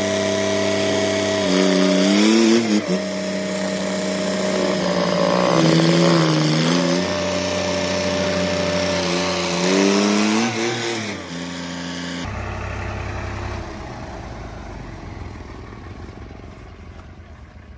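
Swaraj tractor's diesel engine pulling a loaded trolley while reversing, its pitch rising and falling three times as it is revved. About twelve seconds in the sound changes to a quieter, steadier running that fades.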